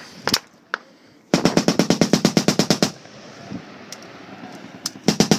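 Close automatic gunfire. A couple of single shots come first, then a long burst of about a second and a half at a fast, even rate. A second burst starts near the end.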